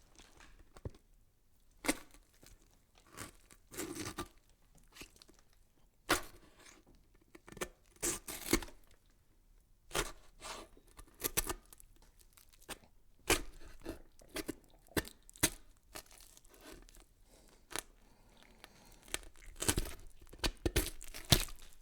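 Irregular crackling and tearing noises: scattered sharp clicks and short rustling bursts, some in quick clusters, with quiet gaps between.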